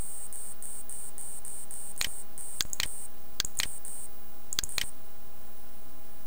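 Computer mouse clicking about seven times, mostly in quick pairs, starting about two seconds in. Underneath is a steady hum, and a high hiss pulses on and off for the first four seconds.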